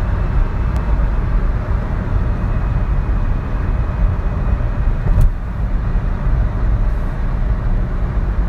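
Ford Fiesta Mk6 with the 1.25-litre four-cylinder petrol engine driving at top speed: a steady engine drone mixed with road and wind noise. A faint, steady high whistle runs through it and fades about five seconds in, and there is a brief click around the same point.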